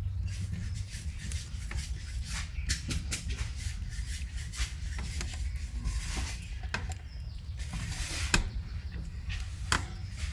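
A baby rabbit sucking milk: quick, irregular little clicks and smacks, several a second, over a low steady rumble.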